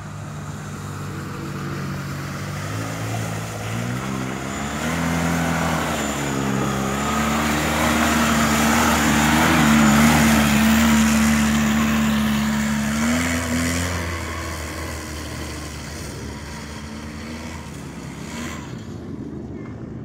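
Polaris Sportsman ATV engine running as the quad rides past close by. Its pitch climbs in steps a few seconds in and holds high, loudest around the middle of the pass. It then drops and fades away.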